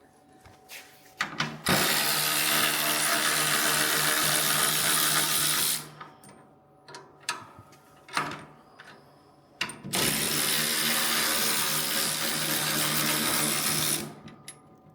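Handheld power tool running in two bursts of about four seconds each, as bolts are taken out. Light clicks and knocks come between the bursts.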